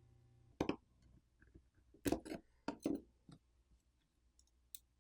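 Small, sharp clicks and taps of tools against a smartphone's parts during disassembly: one click about half a second in, a cluster of clicks between two and three and a half seconds, and a faint tick near the end. A faint low hum cuts off just before the first click.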